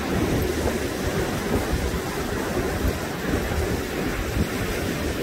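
Sea surf breaking and washing on a sandy beach, a steady rushing, with wind buffeting the microphone.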